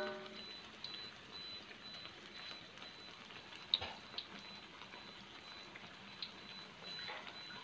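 Battered tempeh frying in hot oil in a wok: a faint steady sizzle with scattered sharp crackles, the sharpest about four seconds in. A brief ringing tone sounds right at the start.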